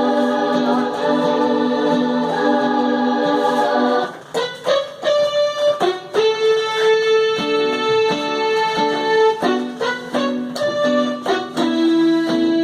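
Electronic keyboard playing: a held chord for about four seconds, then a melody of short, separate notes broken by long held notes.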